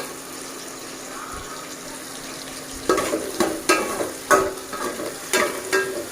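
Peeled shallots sizzling in hot oil in a cooking pot, being sautéed until they brown. From about three seconds in, a spoon stirs them with a series of sharp scraping strokes against the pan.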